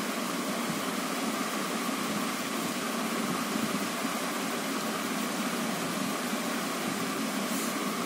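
Steady background hiss with a faint even hum, the sound of a room fan running.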